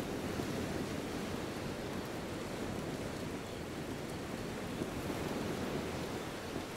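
Ocean surf washing on a beach: a steady rushing noise of breaking waves.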